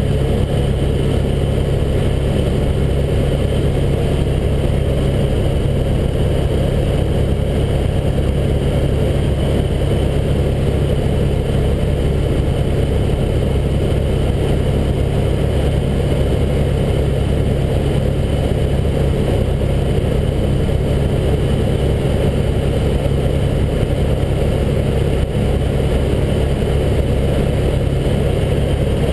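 Helicopter engine and main rotor running steadily in flight, a loud, even drone heard from inside the cabin.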